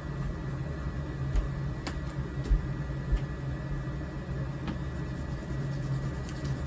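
Steady low mechanical hum running throughout, with a few light clicks and taps scattered through the first few seconds.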